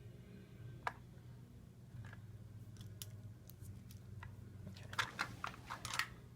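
Faint scattered clicks and rustles of handling, with a quick run of sharper clicks about five seconds in, over a low steady hum.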